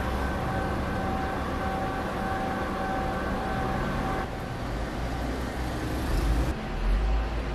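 Steady street background noise: a low rumble with a humming tone that stops about four seconds in, and the rumble swelling near the end.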